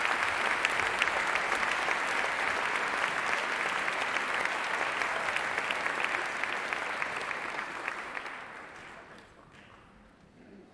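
Audience applause: many people clapping steadily, then dying away about eight or nine seconds in.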